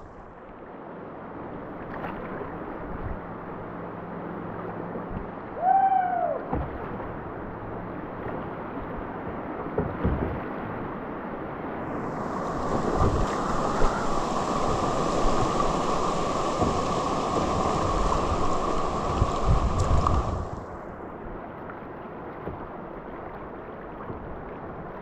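Kayak running down a fast river: a steady rush of current and water slapping the hull, with a few low paddle splashes. A brief falling cry comes about six seconds in. The rushing grows louder and brighter for about eight seconds past the middle, then drops back.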